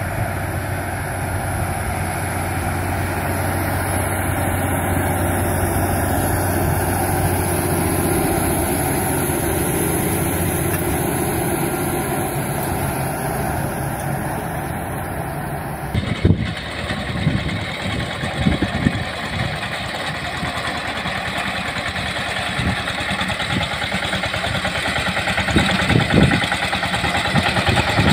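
A large tracked tractor's diesel engine runs steadily under load while pulling a disc harrow. About sixteen seconds in, this gives way to a small compact tractor's engine running, with irregular low thumps as its mower cuts grass.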